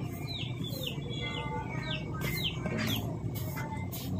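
Birds chirping: a quick series of short, high chirps, each sweeping downward in pitch, several a second.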